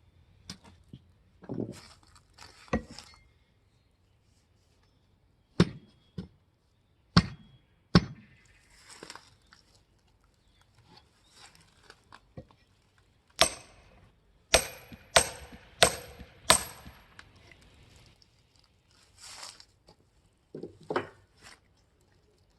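Firewood being split by hand with chopping blows: sharp single strikes, then a quick run of five ringing, metallic strikes about two-thirds of the way through, and a few lighter knocks near the end.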